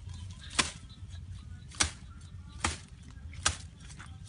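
Dry bamboo stems and brush snapping and being whacked aside, four sharp cracks about once a second.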